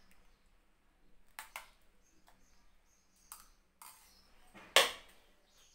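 Metal spoon clinking against a small stainless steel saucepan while stirring and lifting thick cooked flaxseed gel: a few light taps, then one louder clink that rings briefly near the end.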